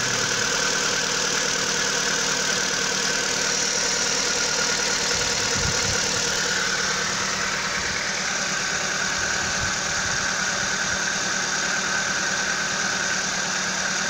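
Kia car engine idling steadily, with a ticking noise over a steady high hum. The tick is the one this car makes on a morning cold start, lasting about a minute.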